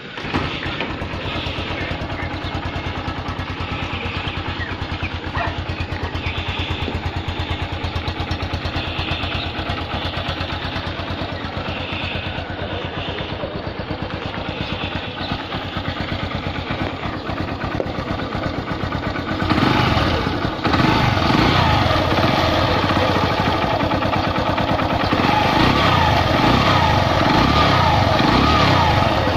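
Honda CB110's single-cylinder four-stroke engine running after a timing chain repair, ticking over steadily at first. About two-thirds of the way in it gets louder, its pitch rising and falling as it is revved.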